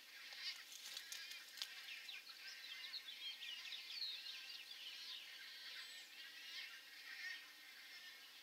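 Chorus of birds calling at a nesting colony: many short, high chirps and squeals overlapping, thickest through the middle and thinning near the end.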